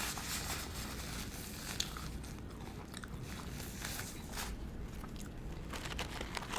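A person chewing fried chicken close to the microphone: steady mouth noise with scattered small crunches, one a little louder about two seconds in.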